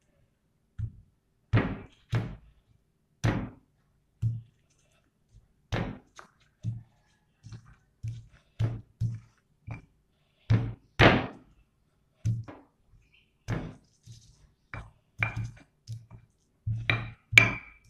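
Stone pestle (ulekan) pounding turmeric, ginger and shallots on a flat stone mortar (cobek): a series of irregular dull knocks, about one or two a second, with the hardest strikes near the middle and at the end.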